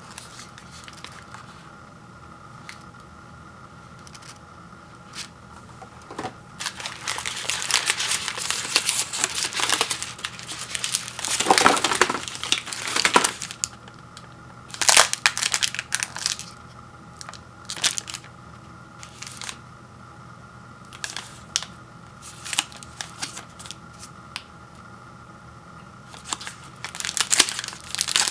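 Plastic granola bar wrappers crinkling as they are handled. The crinkling comes in irregular bursts, with a longer run of rustling about a quarter of the way in and sharp crackles near the end.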